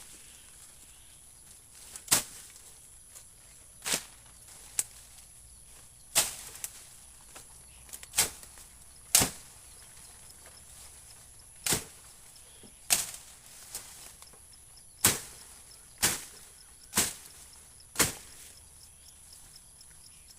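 A blade chopping, about a dozen sharp strikes at an uneven pace, roughly one to two seconds apart. A faint steady high-pitched tone runs behind them.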